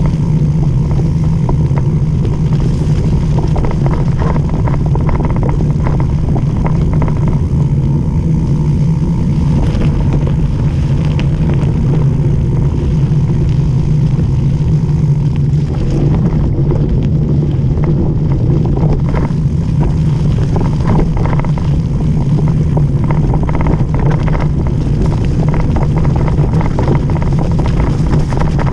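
Loud, steady rumble of mountain-bike tyres running fast over a gravel dirt road, with wind on the microphone and the bike and camera mount rattling over loose stones.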